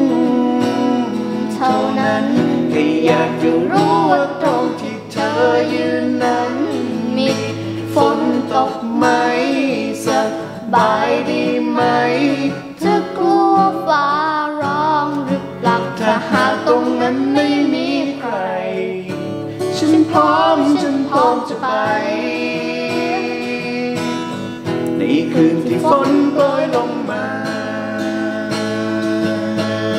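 Acoustic guitar accompanying a girl and a man singing a Thai song.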